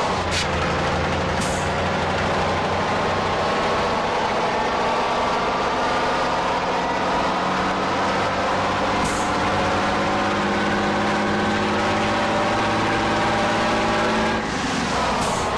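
Truck engine running under way, its pitch climbing slowly as it pulls through a gear, then dropping near the end as it changes gear. A few brief hisses sound over it.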